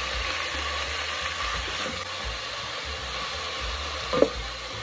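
Spices and garlic-ginger paste sizzling steadily in hot oil in a pot while a wooden spatula stirs them. There is a single sharp knock a little after four seconds in.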